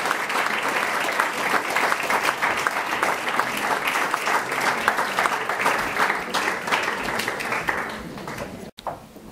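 Audience applauding: a dense, steady patter of clapping that thins out near the end and cuts off suddenly.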